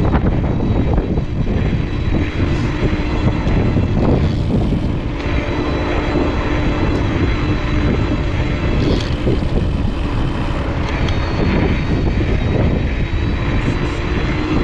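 Wind rumbling on the microphone and tyre noise as an electric mountain bike rolls downhill, with a faint steady hum underneath.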